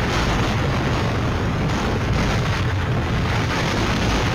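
Hurricane Irma's wind blowing hard with rain, a loud steady rush with heavy rumbling buffets from the wind hitting the microphone.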